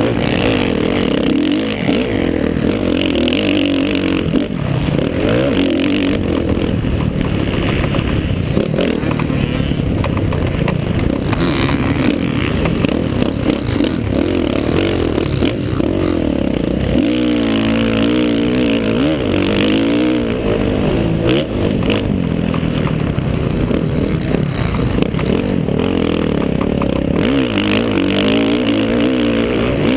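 50cc two-stroke motocross bike engine revving up and down as the rider works the throttle through corners and straights, heard close from a helmet-mounted camera with a steady rush of noise under it.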